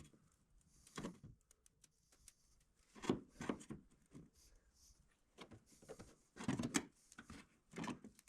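Scattered clicks and knocks of a trim tool prying behind a plastic Mustang side scoop, working at its retaining clips.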